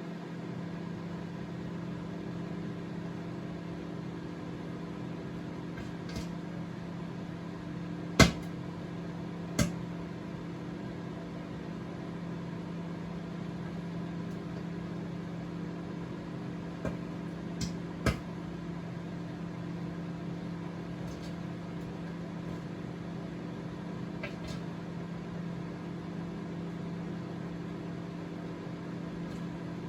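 Microwave oven running with a steady hum, broken by a few sharp pops, the loudest about 8 seconds in and just after 18 seconds.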